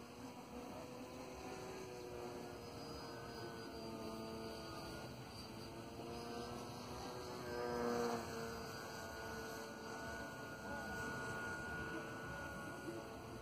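Zagi 98 cm flying wing's motor and propeller droning in flight, its pitch shifting with the throttle. It swells louder about eight seconds in and falls in pitch as the wing passes close by.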